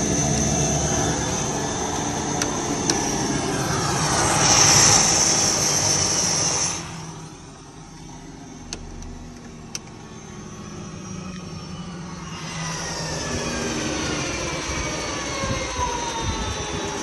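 Cessna turboprop engine shutting down. Its steady high turbine whine swells about four seconds in, then drops away sharply near seven seconds, with a couple of clicks. From about twelve seconds on, the sound returns as several whining tones falling steadily in pitch as the turbine and propeller spin down.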